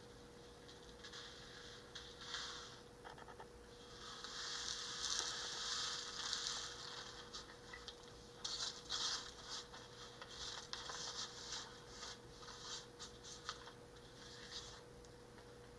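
Paper and paper towel rustling and sliding on a tile countertop as they are handled. There is a longer, louder rustle about four seconds in, then a run of short crackles and scrapes through the second half.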